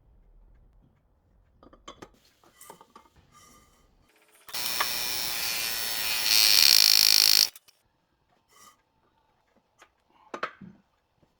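Clicks and knocks of parts being handled during jet ski repair work, then a loud, even rushing noise from a workshop tool lasting about three seconds, which gets louder partway through and cuts off suddenly.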